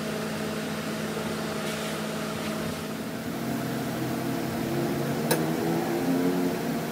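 A steady mechanical hum of several fixed tones, with one sharp click a little past five seconds in.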